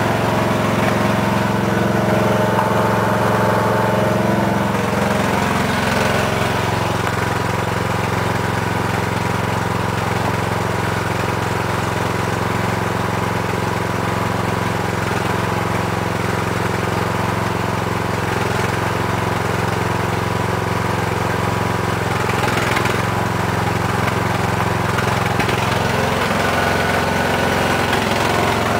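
Briggs & Stratton 15.5 engine of a 2007 Husqvarna lawn tractor running steadily just after a cold start, its first run since sitting all winter. The engine's note shifts slightly about five seconds in, then holds steady.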